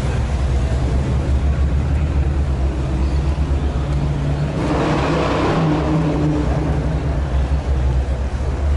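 Car engines running with a steady low hum, and a car driving past about halfway through, its sound swelling and then fading.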